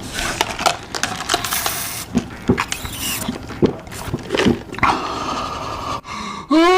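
Close-miked crunching and chewing of crispy fried chicken: many short sharp crunches with bursts of crackle. Near the end a loud, steady pitched tone starts.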